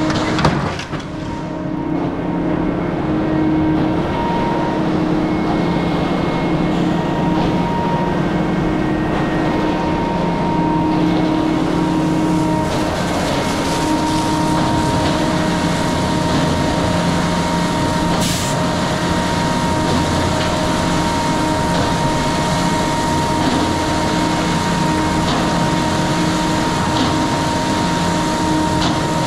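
Water from a hose spraying against a concrete mixer truck's chute and rear, over the steady running of the truck's engine and turning drum. A brief clank near the start as the chute is handled.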